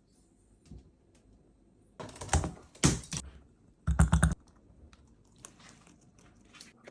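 Parrot working a hard toy with its beak, making three short bursts of rapid clicking and clattering about two, three and four seconds in.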